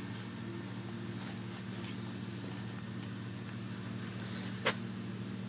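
Steady high-pitched drone of insects, such as crickets, over a low steady hum, with a single sharp click near the end.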